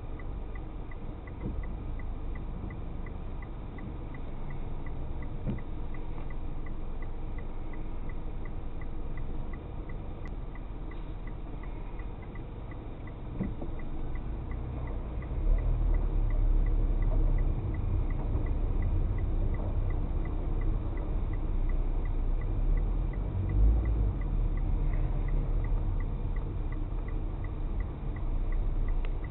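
Car running along a road, heard from inside: low engine and road rumble that grows louder from about halfway through as the car picks up speed. A faint, steady, regular ticking runs underneath throughout.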